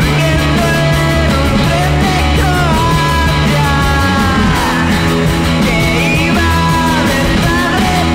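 Lo-fi indie rock song with electric guitar, bass guitar and drums and a male voice singing, recorded on a cassette multitrack.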